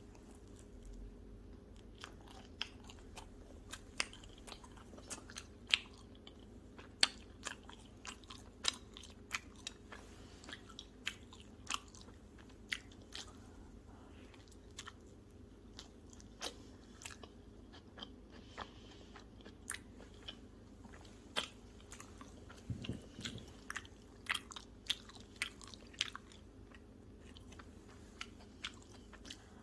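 Close-up chewing of pizza: irregular crisp crunches of the crust and mouth clicks, about one or two a second, over a faint steady low hum.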